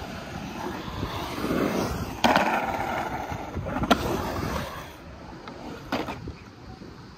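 Skateboard wheels rolling on concrete, with a hard clack about two seconds in, a sharp snap near four seconds, and another knock about six seconds in as the rolling dies down.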